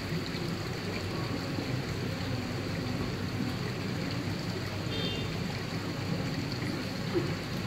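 Steady rushing and splashing of aquarium water, with a low hum underneath, as from the tank's aeration and filtration.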